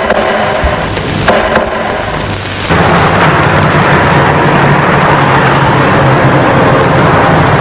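A few sharp knocks, then, about three seconds in, an abrupt switch to a loud, steady rushing din with a low hum underneath.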